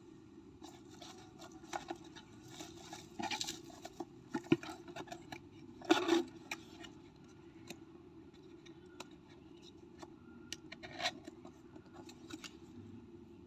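Handling noise from unboxing a replica airgun pistol: rustling of packaging and scattered clicks and taps. There is a sharp click about four and a half seconds in, and the loudest knock and rustle comes about a second later.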